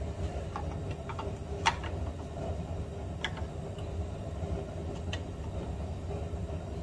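Scattered light clicks and ticks of hand work on the screws and plastic housing of a minivan's front blower motor assembly, a few sharper than the rest, over a steady low hum.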